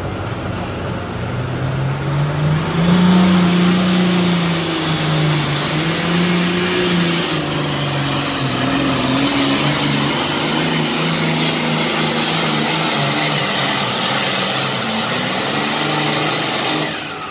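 Single-turbo John Deere pulling tractor making a full-throttle pull down the track. The engine gets louder about two and a half seconds in, holds loud with its pitch wavering under load, and drops away near the end as the pull finishes.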